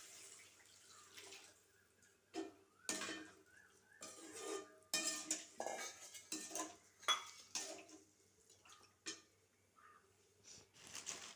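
Metal utensils clinking and knocking against a cooking pan, a dozen or so irregular knocks, some ringing briefly, as water is added to the sautéed quail and stirred in.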